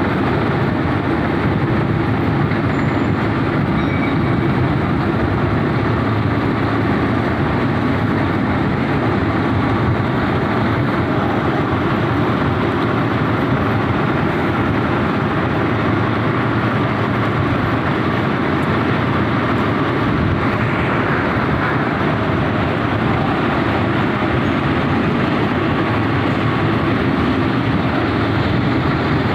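Metal lathe running steadily while boring out a coupling, a loud, unbroken machine noise.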